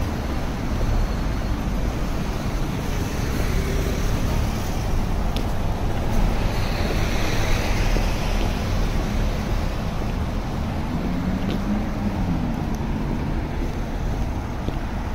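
City road traffic: cars and buses passing steadily, a continuous rumble of engines and tyres, with one vehicle swelling louder around the middle and an engine note rising and falling about two-thirds of the way through.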